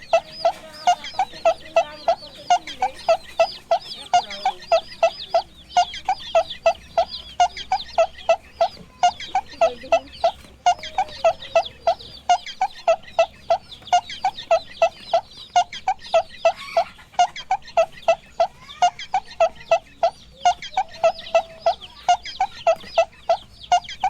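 Chickens clucking in a rapid, evenly spaced run of about three clucks a second, with high chirping over it.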